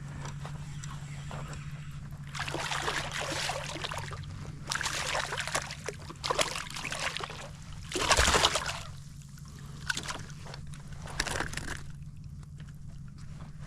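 Water splashing and sloshing around a kayak in a series of bursts, the loudest about eight seconds in, over a steady low hum.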